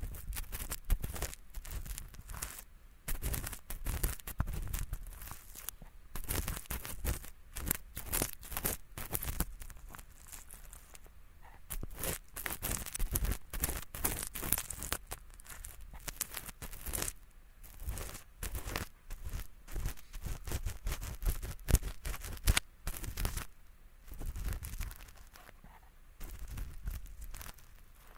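Ear pick scratching thin, flaky earwax in a microphone's left ear: a dense crackle of short scraping strokes that come in bursts, with brief pauses between them.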